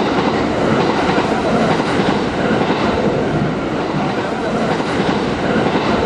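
A train running past, a loud, steady noise.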